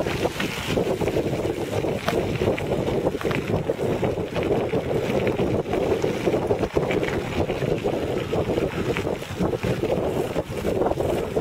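Tyres of a recumbent pedal quad rolling over a loose gravel road: a steady rumbling crunch with many small clicks from the stones. Wind on the microphone runs under it.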